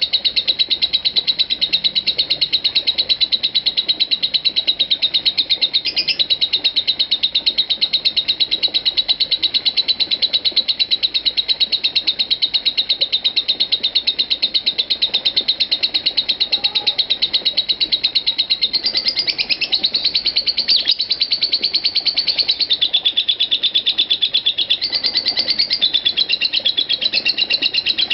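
Lovebird in nonstop 'ngekek' chatter: a long, unbroken string of rapid high chirps with no pause. Its pitch steps up and shifts a few times in the later part. This endless chattering is what keepers call 'konslet'.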